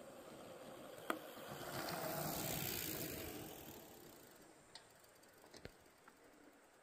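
Loaded touring bicycle rolling past on a dirt road, its tyres crunching on the grit. The sound swells to its loudest two to three seconds in and then fades, with a sharp click about a second in and a few light ticks later.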